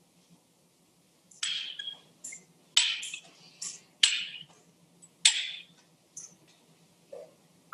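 A run of about seven light clinks and clacks, irregularly spaced, beginning about a second and a half in, each short and dying away quickly.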